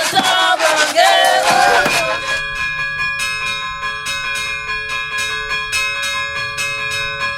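Voices singing together, then from about two seconds in church bells struck in quick, steady strokes, several a second, their tones ringing on between strokes.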